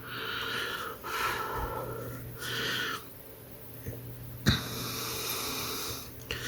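A man breathing close to the microphone, several breaths of about a second each, over a steady low hum, with a sharp click about four and a half seconds in.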